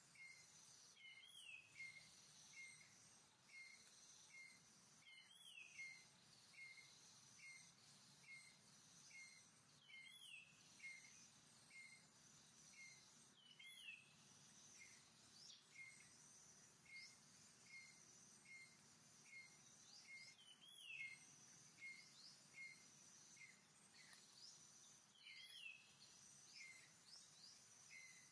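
Faint forest ambience: a steady high insect drone, a short bird-like chirp repeating about twice a second, and a louder arching call about every four or five seconds.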